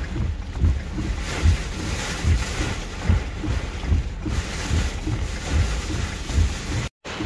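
Severe-thunderstorm wind and heavy rain lashing a vehicle, a steady noisy rush with irregular gusts buffeting the microphone in low thumps. The sound cuts out briefly near the end.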